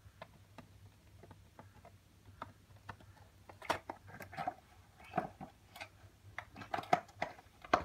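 A small knife slitting open a cardboard toy-car box: faint, irregular scratches and clicks that grow busier and louder from about three and a half seconds in.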